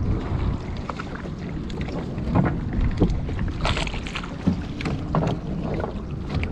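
Wind rumbling on the microphone aboard a small open fishing boat at sea, with scattered knocks.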